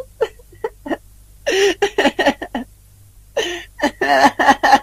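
A young man sobbing and blubbering in broken bursts, his voice wavering.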